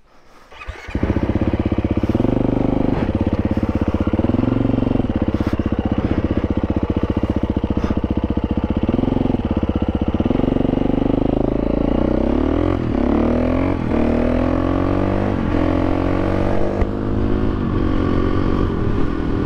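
KTM 350 EXC-F's single-cylinder four-stroke engine running at steady low revs, then accelerating hard. From about ten seconds in the pitch climbs and drops back with each of about four upshifts.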